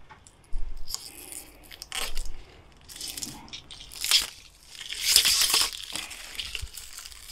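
Knipex ErgoStrip cable stripper scraping and cutting along a cable's plastic sheath as it is stripped back: about five short scrapes roughly a second apart, the longest about five seconds in.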